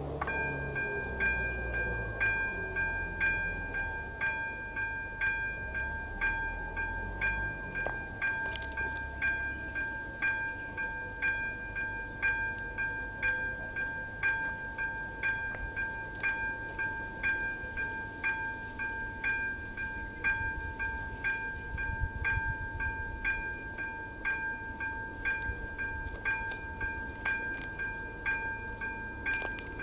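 Level-crossing warning bell, the electronic ZV02 bell of an AŽD 97 crossing signal, switching on just after the start and ringing on steadily with evenly repeated strikes over a sustained high tone: the crossing's warning that a train is approaching.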